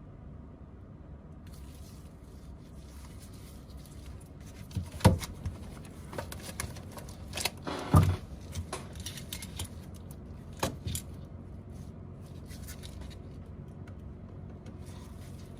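Small tools and parts being handled while a phone is worked on: soft scraping, with a few sharp knocks or clicks, the loudest about halfway through.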